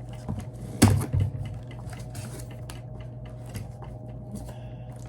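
Hands working an item out of its packaging: scattered small clicks and rattles, with one louder knock about a second in.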